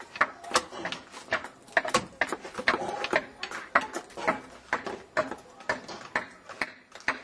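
Hand tools striking wood in quick, uneven knocks, about two or three a second, as djembe drum shells are carved out of logs. Voices talk in the background.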